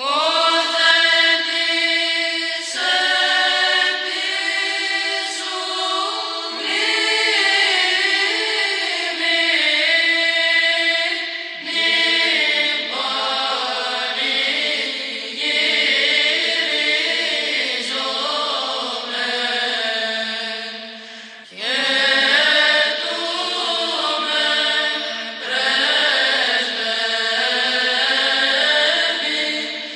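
Greek Orthodox Byzantine chant playing as background music: voices sing long, drawn-out phrases, with a brief break about 21 seconds in.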